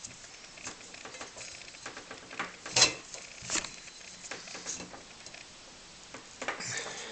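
Small clicks, taps and scrapes of metal blow-torch parts being handled and fitted together during reassembly, with a sharper knock about three seconds in and a short scraping rattle near the end.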